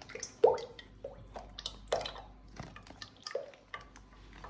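Heavy cream pouring in a thin stream from a squeezed carton into a stainless steel mixer bowl, dripping and splashing in irregular spurts, the loudest about half a second in.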